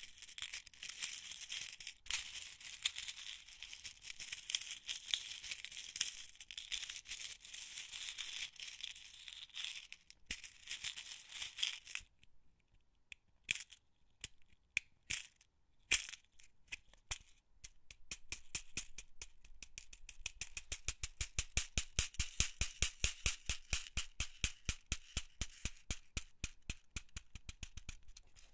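Metal office pins rattling in a box: a dense, high metallic rattle for about ten seconds, then a lull with a few scattered clicks, then a steady run of sharp clicks at about four a second.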